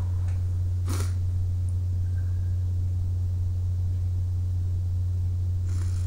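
Steady low hum, with a brief faint breath about a second in and another faint one near the end.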